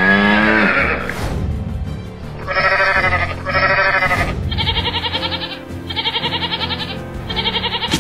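A goat bleating about five times in short wavering calls, starting a little over two seconds in, over steady background music. A single falling animal call, the loudest sound, opens the stretch.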